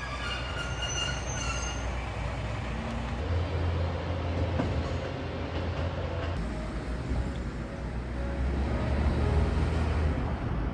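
Train running along the track with a steady rumble, and a thin high wheel squeal in the first couple of seconds.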